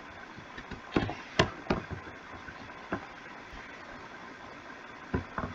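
A handful of short, sharp clicks and knocks, irregularly spaced with the loudest near the start, over a faint steady hiss.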